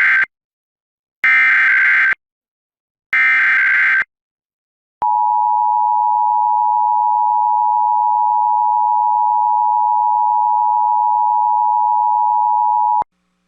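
Emergency Alert System header: three bursts of SAME digital data tones, each about a second long with short silent gaps between them, the first already under way. Then the EAS two-tone attention signal (853 and 960 Hz sounded together), a steady tone held about eight seconds that cuts off suddenly. Together they open a broadcast alert, here a required monthly test.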